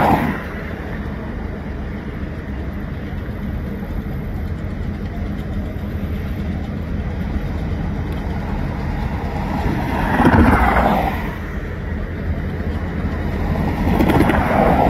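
Diesel freight locomotives approaching slowly, their engines giving a steady low rumble. Two louder swells of sound come about ten seconds in and again near the end.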